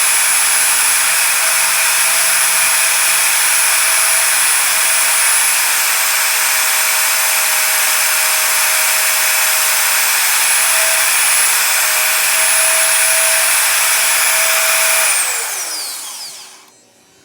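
Electric power tool motor running at a steady high speed with a loud whine, then switched off about fifteen seconds in and winding down, its pitch falling away.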